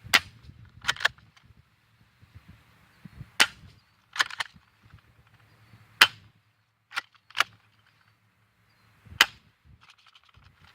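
Spring-powered BB gun being fired and cocked between shots: a string of sharp snapping clicks, some in quick pairs, the loudest about three and a half, six and nine seconds in.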